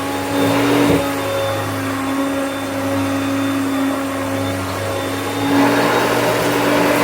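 Hoover Concept upright vacuum cleaner running steadily with a constant motor hum, swelling into a louder rushing sound about half a second in and again from about five and a half seconds.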